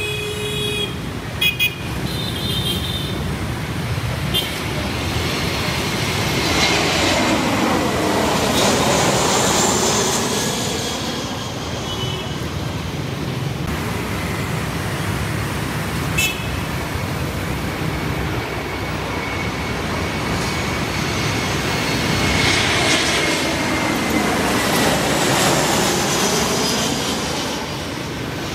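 Two Airbus A321-211 airliners with CFM56 turbofans on final approach pass low overhead one after the other, the jet noise swelling to a peak and fading away with a sweeping change of tone, the first loudest about nine seconds in and the second near the end. Street traffic runs underneath, with a brief car horn toot in the first few seconds.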